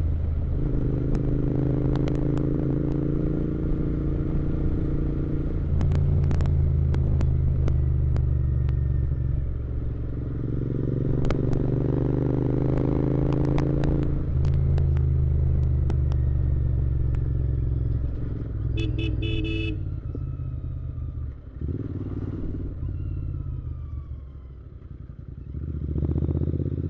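Royal Enfield Interceptor 650's parallel-twin engine under way, its note climbing in each gear with upshifts about six and fourteen seconds in. Near the end it eases off and runs quieter, then picks up again. A brief pulsing beep comes about two-thirds of the way through.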